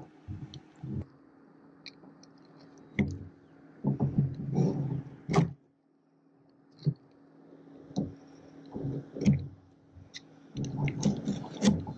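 Fillet knife cutting a blue catfish along its backbone: irregular wet slicing and squishing sounds with knocks and scrapes of the fish and knife on a plastic cutting board. The sound drops out completely for about a second near the middle.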